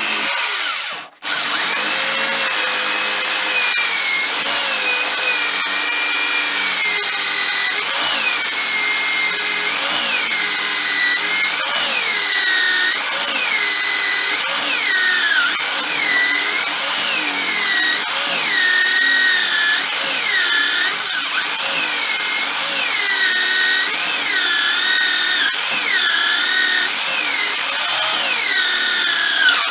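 A high-pitched electric power tool whining under load, its pitch dipping and recovering about once a second as it is pressed into the work. It cuts out briefly about a second in.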